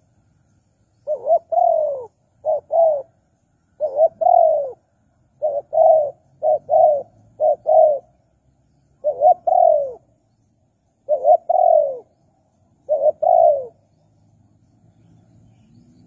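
Spotted dove cooing: about nine phrases in a row, each one or two short notes followed by a longer falling coo.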